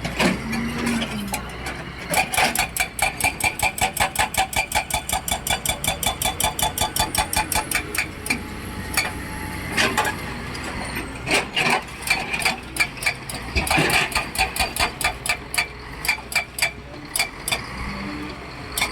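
Heavy earthmoving machinery at work: a low diesel engine running under a fast, regular metallic clanking of about five to six knocks a second, which turns irregular about halfway through, with a few heavier knocks.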